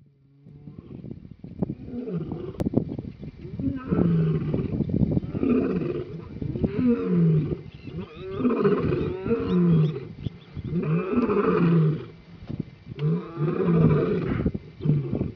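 Lions roaring: the bout starts quietly and builds over the first few seconds into a regular series of loud roars, about one every second to second and a half.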